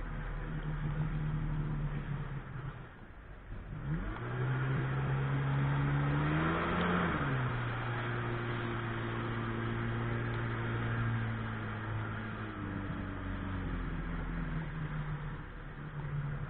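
Sea-Doo personal watercraft engine running under way, with water rushing and splashing at the hull. The engine note dips about three seconds in, climbs in pitch over the next few seconds, drops to a lower steady note, then rises again near the end.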